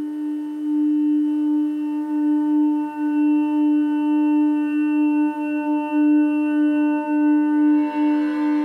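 Eerie background music: a single sustained drone tone with a stack of overtones, slightly wavering in level, like a singing bowl. Near the end a brighter, hissier layer swells in above it.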